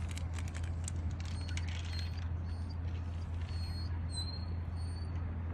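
Faint, high-pitched animal squeaks, about a dozen short ones, over a steady low hum.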